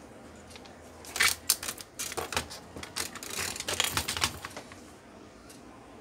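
A burst of rapid, irregular clicking and clattering of hard objects, starting about a second in and lasting about three and a half seconds.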